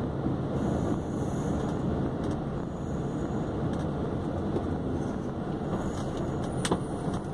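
Volkswagen Constellation 24-280 truck's diesel engine running steadily as the truck drives, heard from inside the cab along with road noise. A single sharp click near the end.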